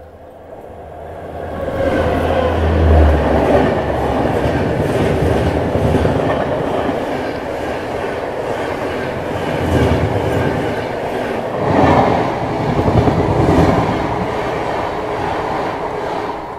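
A passenger train hauled by an electric locomotive passes at speed on the next track, its wheels clattering over the rail joints. The sound builds over the first two seconds, then stays loud, swelling again as later coaches go by.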